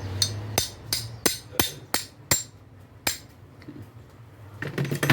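Hammer striking metal on a disassembled car starter motor: a quick run of about seven sharp taps, roughly three a second, then a single tap and a short cluster of blows near the end, as a part is knocked loose from the starter.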